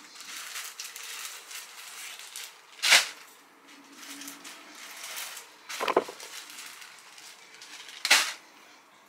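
Rustling and handling noise from plastic-bagged clothing being moved, with three short, sharp crackles a little under three seconds apart.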